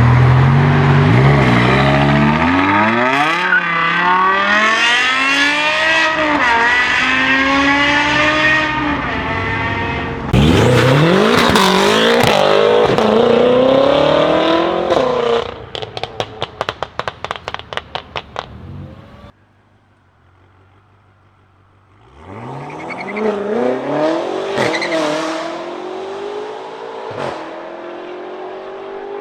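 BMW M5 engines (E60 V10 and F10/F90 twin-turbo V8s) accelerating hard in turn, the revs climbing and falling back at each gear change. One run ends in a rapid series of exhaust pops and crackles.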